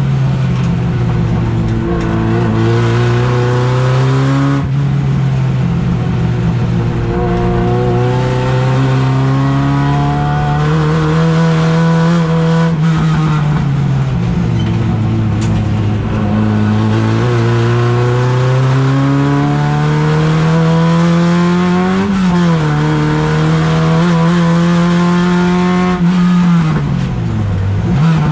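A race car's engine heard from inside its stripped cabin, running hard around the circuit. It climbs in pitch as the car pulls and drops back at each gear change or braking point, with sharp drops about 22 and 27 seconds in.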